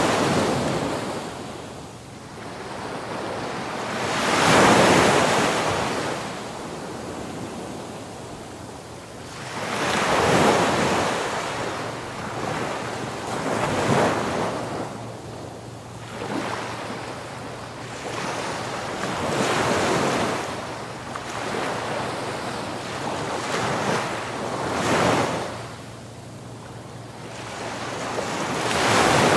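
Waves washing ashore, the surf swelling and fading every four to six seconds.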